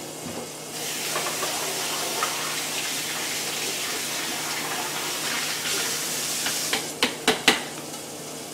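Asparagus and mushrooms sizzling steadily as they fry in oil in a pan; the hiss grows louder about a second in. Near the end come three sharp taps.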